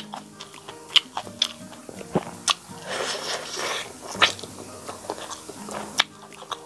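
Close-up eating sounds: a person chewing chicken and rice, with sharp wet mouth smacks every second or so and a longer squelching stretch near the middle as a piece of chicken is bitten. Soft background music runs underneath.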